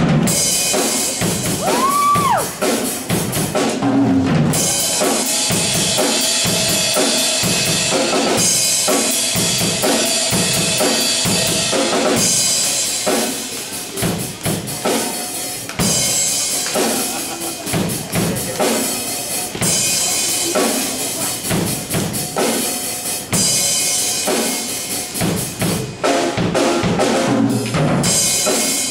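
A child playing a DW drum kit: a steady beat of bass drum and snare hits, with cymbal wash that comes in and drops out every few seconds.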